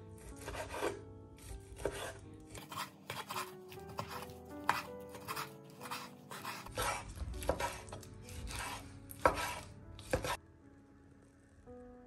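Chef's knife slicing raw meat on a wooden cutting board, a quick irregular run of strokes each ending in a knock on the board, about one or two a second. The cutting stops about two seconds before the end.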